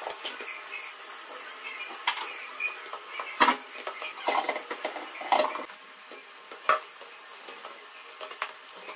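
A hand rubbing and squeezing flour, ghee and warm water into a crumbly dough in a stainless steel plate: a dry, crackly rustling with a few sharp knocks and scrapes against the steel.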